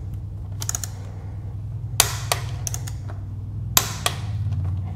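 Torque wrench turning the 6 mm hex final-drive filler plug of a BMW R1200GS up to 20 Nm. Two sharp metallic clicks come about two and three-quarter seconds in, with fainter ticks around them, over a low steady hum.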